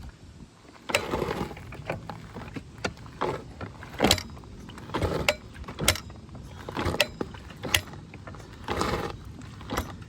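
Honda CRF250R's four-stroke single-cylinder engine being kicked over several times without firing, with irregular sharp clanks and duller kick strokes. The clanking comes only when kicking it or putting it in gear, and the owner wonders whether it means the top end is worn.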